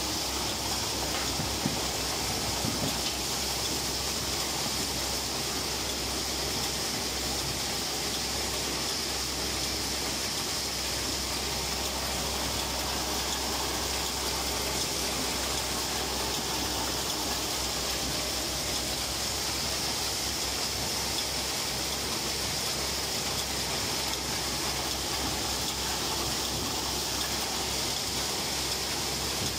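Dry bean harvester running steadily as its spring-tine pickup sweeps through dried bean plants: an even, unbroken rushing noise with a low hum beneath.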